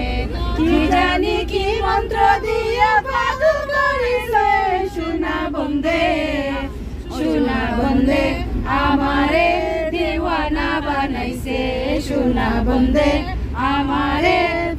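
Women singing a Bengali love song together, one voice carried through the coach's handheld PA microphone, over a steady low rumble of the coach.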